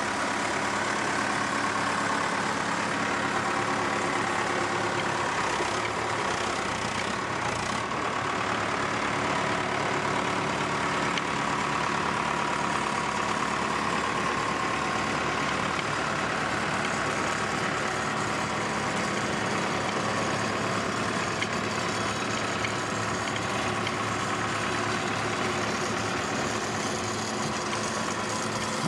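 Diesel engine of a 1995 Case 580SL 4x4 backhoe loader running steadily at an even speed.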